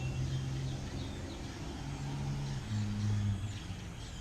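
Outdoor background of birds chirping over the low hum of a vehicle engine driving by, its pitch shifting a couple of times partway through.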